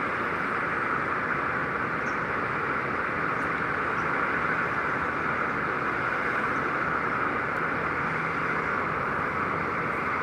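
Steady din of distant city traffic, an even rushing noise with no single vehicle standing out.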